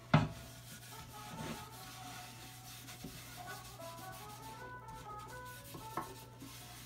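A cloth pad rubbing alcohol shellac onto the wooden bowl of a Persian tar, a soft continuous rub. A sharp knock comes just after the start, and a lighter tap about six seconds in.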